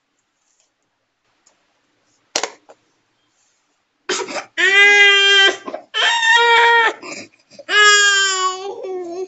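A toddler crying in three long, loud wails, starting about four seconds in. Before that, one sharp click: the makeup compact's lid snapping shut.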